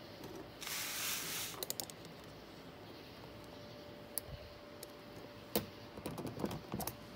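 Small metal clicks and scraping from a screwdriver working a retaining pin into the door-lock knob hardware on a door panel, ending as the pin snaps into place. A brief rustling scrape comes about a second in, then scattered sharp clicks that bunch together near the end.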